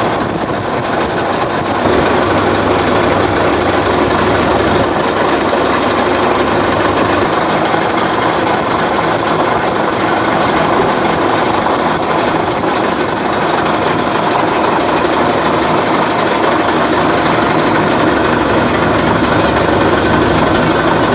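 Boat engine running loudly and steadily.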